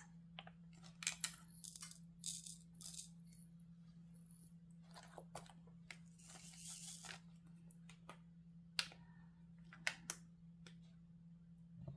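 Diamond-painting resin drills rattling as they are poured into a plastic drill tray and shaken, with a denser rattle about halfway through and scattered light clicks and taps. A faint steady low hum runs underneath.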